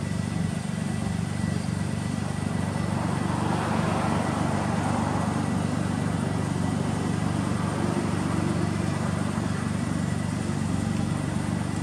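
Suzuki Cappuccino's K6A turbocharged three-cylinder engine idling steadily through an aftermarket muffler, with a brief swell of rushing noise about four seconds in.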